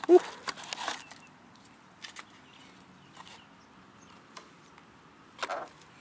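Paper takeaway box rustling and crinkling as a hand grips and lifts a crispy fried chicken piece out of it, loudest right at the start with a cluster of crackles, then a few faint ticks and a short rustle near the end.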